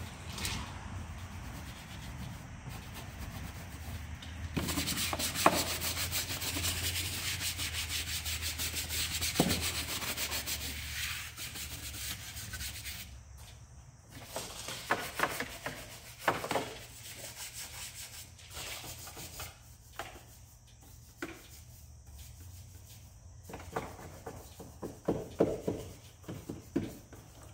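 Stiff-bristled wheel brush scrubbing wet, foamed-up degreaser over engine parts: a run of fast, continuous scrubbing strokes for several seconds in the first half, then lighter, intermittent scrubbing with a few soft knocks of the brush against parts.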